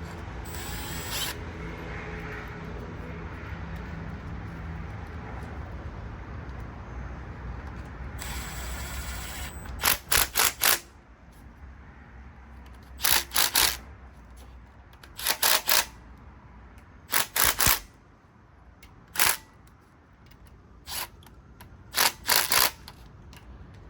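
Ratcheting wrench clicking in short bursts of a few quick strokes, about eight bursts through the second half, snugging down the 10 mm bolts of the water pump on a Volvo B230 red block. A steady low hum runs under the first half and stops about ten seconds in.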